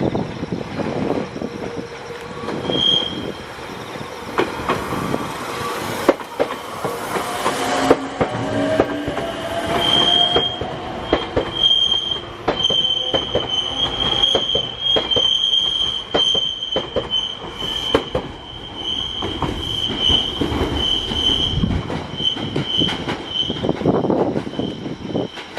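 Meitetsu electric train running by, its wheels clicking over rail joints. From about ten seconds in, a high, wavering wheel squeal continues to the end.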